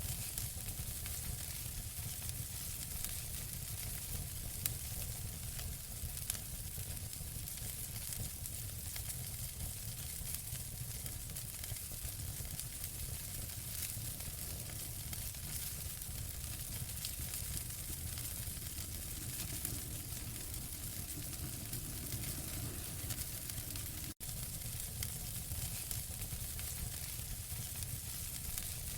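Wood fire crackling: many small sharp pops and snaps over a steady hiss and low rumble. The sound drops out for a split second near the end.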